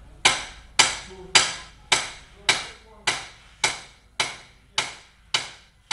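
A hammer striking in a steady rhythm: about eleven evenly spaced blows, a little under two a second, each ringing briefly.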